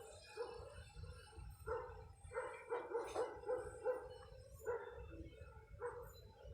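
A dog barking repeatedly, a run of short barks in quick succession through the middle, over low wind rumble on the microphone.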